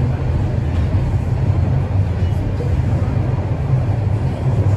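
Toronto Rocket subway train running at speed through the tunnel on TTC Line 1, heard from inside the car: a steady, loud low rumble of wheels and running gear with a rushing hiss above it.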